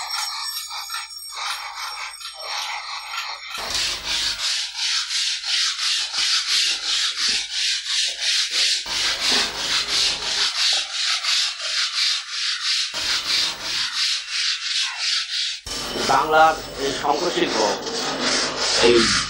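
Large crescent-shaped hand saw cutting through a conch shell, a rasping back-and-forth of about three strokes a second. In the last few seconds it changes to a higher, wavering squeal.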